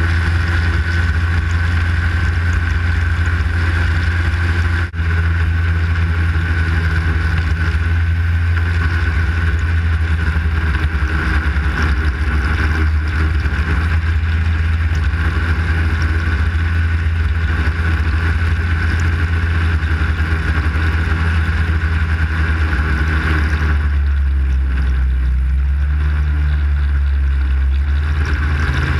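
Arctic Cat snowmobile engine running at steady trail-cruising speed, recorded from the sled itself, with a steady high whine over the engine note. About 24 seconds in the throttle eases and the engine note drops, then it picks back up near the end.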